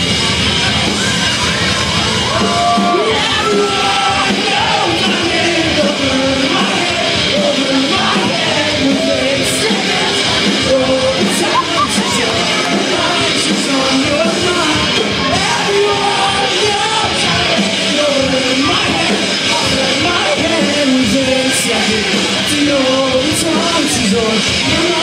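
Live pop-punk band performance with loud sung and yelled vocals, echoing in a large hall.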